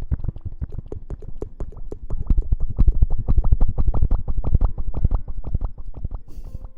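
Fingers rapidly scratching and rubbing close to the microphone in ASMR hair-washing sounds: a quick, dense run of strokes that fades toward the end.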